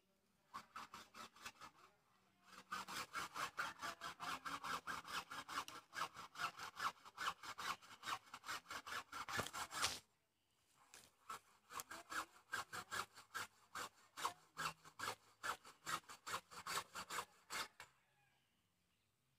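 Hand saw cutting through a bamboo pole in quick back-and-forth strokes, about five a second. The strokes start light, grow louder a couple of seconds in, pause briefly about halfway, then resume and stop shortly before the end.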